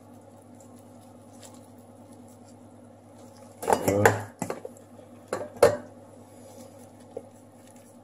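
Kitchenware clattering over a steady low hum: a scraping clatter about three and a half seconds in, then two sharp knocks about a second later.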